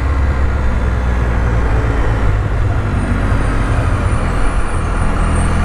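A Can-Am Spyder F3-T's Rotax 1330 inline-three engine and belt drive run steadily while riding, with road noise. There is no grumble from the drive, which has a freshly replaced drive pulley.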